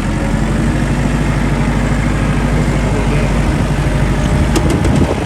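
Kubota 55-horsepower four-wheel-drive tractor's diesel engine running under load, pulling up a snowy incline, getting slightly louder. A quick rattle of sharp clanks near the end.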